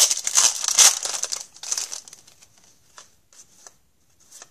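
Shiny foil wrapper of a hockey card pack crinkling and tearing as it is opened by hand, a dense crackle for about two seconds that then dies down. A few faint ticks follow as the cards are handled.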